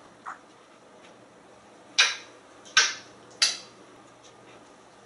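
African grey parrot making three short, sharp kissing smacks about two, three and three and a half seconds in, with a faint click near the start.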